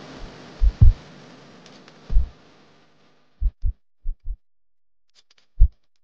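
Deep bass thumps of electronic background music, about eight in all, spaced irregularly. Under them, the steady rush of river water pouring over a weir fades out by about three seconds in.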